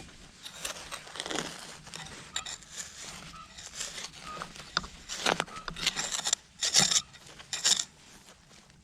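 Scraping and crunching of a digging tool working through beach sand and gravel to recover a buried target, with a few short, faint metal-detector beeps in between. The loudest scrapes come from about five to eight seconds in.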